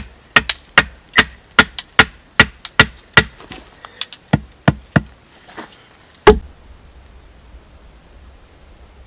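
Hatchet chopping an upright wooden stake: a quick run of sharp strikes on wood, about two or three a second, then one loudest blow about six seconds in. After that the strikes stop.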